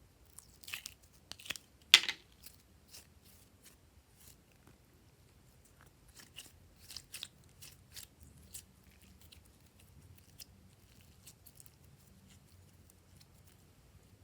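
Glossy slime being squeezed and stretched by hand, giving irregular clicks and small pops, the loudest about two seconds in and fewer toward the end.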